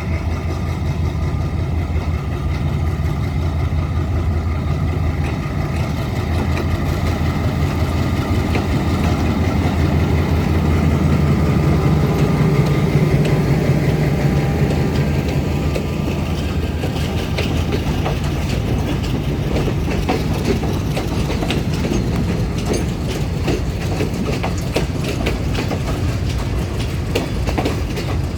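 Diesel freight train passing: the locomotive's engine drones steadily, loudest a little before halfway. About halfway through, the clickety-clack of the wagons' wheels over the rail joints takes over.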